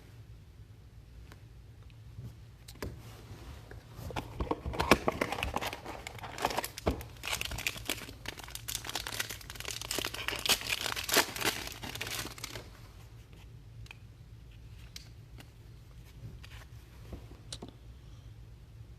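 Foil trading-card pack wrapper being torn open and crinkled while the cards are pulled out, a dense crackling run from about four seconds in that stops at about twelve seconds, with lighter card handling around it.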